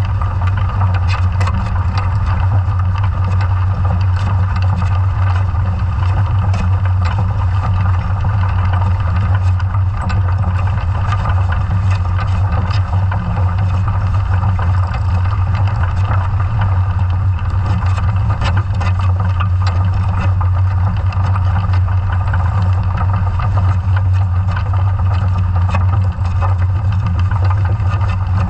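Underwater noise around a scallop survey dredge being towed over the seabed: a loud, steady low hum with scattered clicks and ticks throughout.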